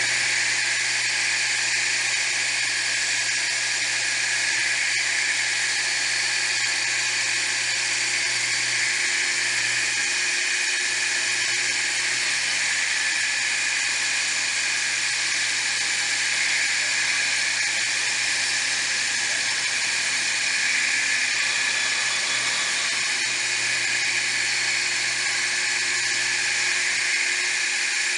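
High-speed spindle motor of a homemade milling machine running steadily, a high-pitched whine and hiss with a low hum underneath.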